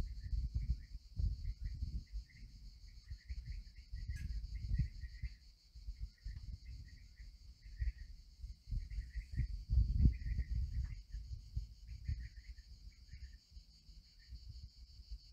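Outdoor nature ambience: a steady high insect drone with short bird chirps scattered through it, and wind gusting on the microphone. A single click about four seconds in.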